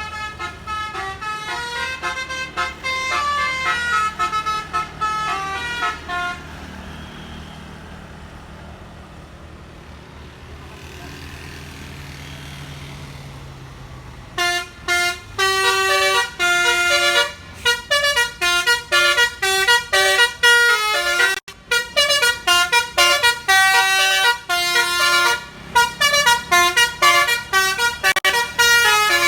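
Tour bus 'telolet basuri' multi-tone air horns playing fast melodies of stepped notes for about six seconds. After a quieter lull of about eight seconds, a second, louder stretch of horn melody runs on with short breaks.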